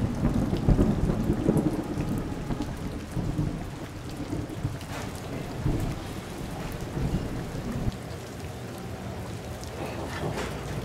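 Thunderstorm: thunder rumbling over steady rain, the rumble loudest in the first two seconds and swelling again around the middle.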